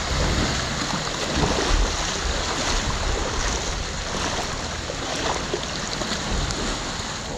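Heavy tropical rain falling on the sea, a steady dense hiss, with small waves washing onto the sand and gusts of wind rumbling on the microphone.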